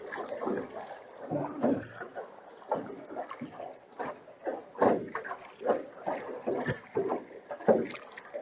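Oars of a small rowboat dipping and pulling through the water, with splashes and knocks at irregular strokes about once a second.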